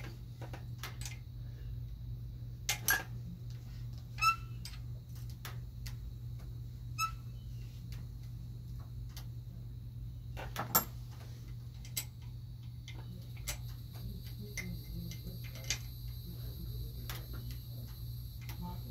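Scattered metal clicks and clinks of hand tools on the bolts and metal parts of a generator being taken apart, a few of them ringing briefly, over a steady low hum.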